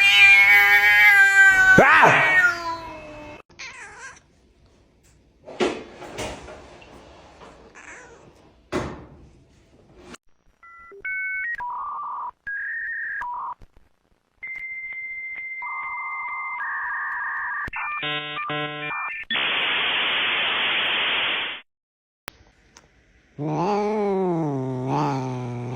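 A cat meowing loudly with a shifting pitch, followed by a few scattered knocks. In the middle comes a string of electronic beeps and steady tones, ending in about two seconds of hiss. Near the end there is another drawn-out cat meow.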